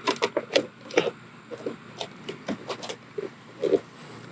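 A plastic mirror cover is slid over a Tesla Model Y side-mirror housing and worked into place. It makes irregular plastic clicks, knocks and scrapes.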